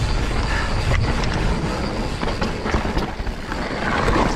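Mountain bike rolling fast down a dirt trail: a continuous rumble of the tyres over dirt, rocks and roots, with the bike rattling and clicking as it goes over the bumps.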